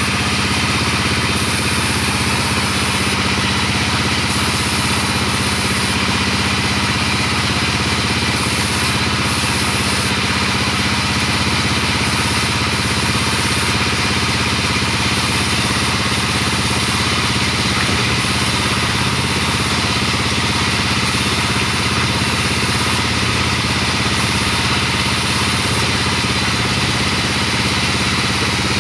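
Sawmill machinery's engine running steadily at an even pitch, without any rise or fall.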